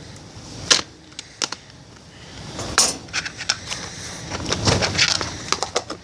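Slime being handled and squeezed, giving irregular sharp clicks and pops.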